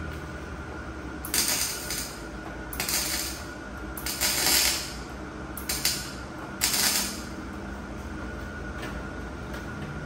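Short welding bursts on a steel body frame, likely tack welds: five separate bursts of hiss, each about half a second long and roughly a second or so apart, over a steady low hum.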